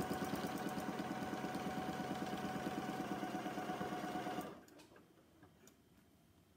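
Janome Memory Craft 6700P computerized sewing machine stitching steadily at speed, free-motion quilting through a quilt with a ruler foot, with a rapid even needle rhythm; it stops abruptly about four and a half seconds in.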